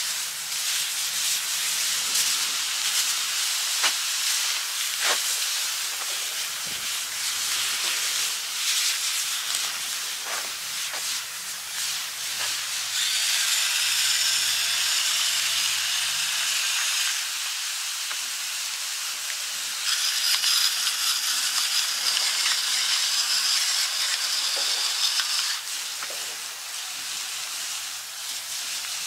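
Skirt steak sizzling steadily in skillets over a log fire, with scattered short pops. Twice in the middle, for a few seconds each, a pepper mill grinds over the pans.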